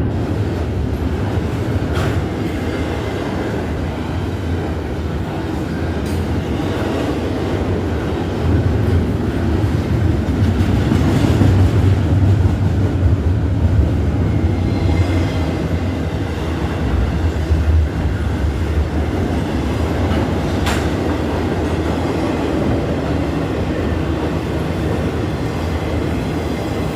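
Norfolk Southern freight train's cars rolling past, a steady rumble of wheels on rail with the clickety-clack of wheels passing over rail joints, a few sharper clicks standing out.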